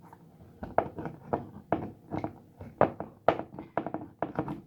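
A scrubber scraping the inside of a water-filled plastic Aqua Pets toy in short, uneven strokes, about two a second, starting just under a second in.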